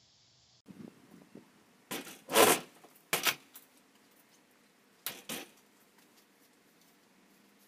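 Handling noises as curtain panels and a metal curtain rod are carried and handled: scattered knocks and fabric rustles, the loudest a single thump about two and a half seconds in, with a few smaller knocks around three and five seconds.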